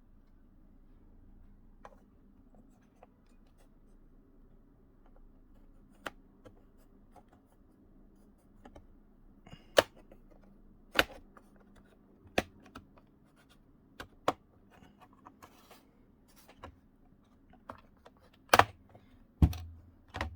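Plastic snap clips of a Lenovo IdeaPad 330s laptop's bottom cover coming loose as the cover is pried off: scattered sharp clicks and snaps. They are sparse and faint at first, then louder and more frequent from about ten seconds in.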